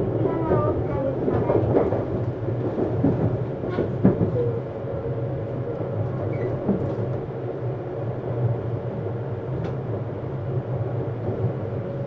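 Running sound inside a Tokyu 7700-series electric train's motor car: a steady rumble of wheels and traction gear, with a couple of sharp rail-joint clicks. From about a third of the way in, a steady hum-like tone runs over the rumble.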